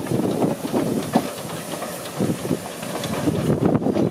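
NGG16 Garratt articulated narrow-gauge steam locomotive No. 143 moving off past the platform and away: a hiss of steam with irregular clanks and clicks from its wheels and motion.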